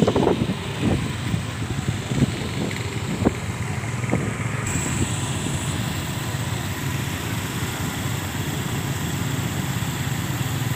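Small motor scooter engines running steadily as the bikes ride through shallow floodwater on a street. Wind buffets the microphone with irregular thumps in the first few seconds.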